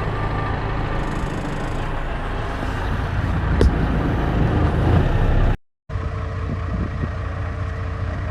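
Tractor engine running steadily at road speed, heard from inside the cab, with a single sharp click about three and a half seconds in. The sound cuts out briefly about halfway through, then an engine runs on a little more quietly with a steady hum.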